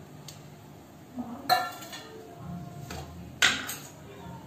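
Two ringing metal clinks of a steel bowl knocking against a steel cooking pot as chicken and broth are tipped into the soup.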